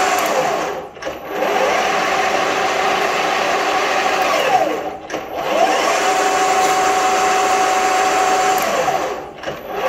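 Bench lathe spindle and three-phase motor on a vector variable-frequency drive running at top speed with a steady whine. Three times the pitch falls quickly to near stop as the drive brakes it, and twice it climbs straight back to full speed as the lever restarts it.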